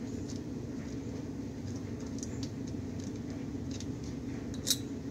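A screwdriver backing a Ruger M77 action screw out of the rifle stock: faint small metal clicks and scrapes, with one sharper click near the end, over a steady low background hum.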